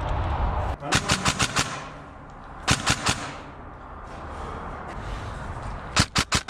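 Airsoft gun firing in quick bursts of sharp cracks: about five shots a second in, three more near the middle, and another rapid string near the end.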